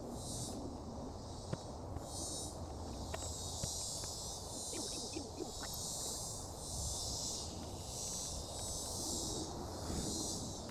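Insects droning outdoors in high, pulsing swells about once a second, with a few faint clicks of parts being handled.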